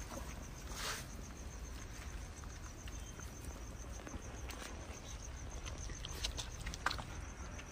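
Cricket chirping steadily in a fast, even pulse, with a few faint clicks and rustles over a low background rumble.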